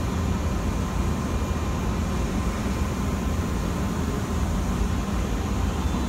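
Steady low hum and rumble inside a JR West 103 series electric train car standing at a platform with its doors open.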